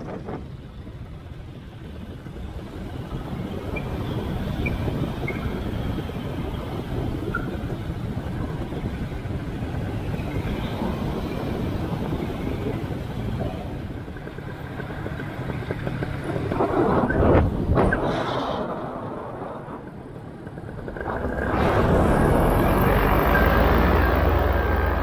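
Wind rushing over the microphone of a camera in flight, mixed with the low drone of a paramotor engine, swelling and easing and loudest in the last few seconds.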